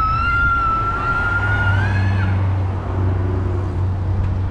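Emergency vehicle siren holding one high, steady note for about two seconds, rising slightly before it breaks off. A low, steady hum of passing street traffic follows in the second half.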